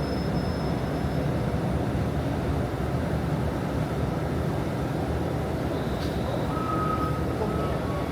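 Steady low rumble of a city bus in motion, heard from inside the passenger cabin: engine and road noise. A click about six seconds in and a short faint high whine about a second later.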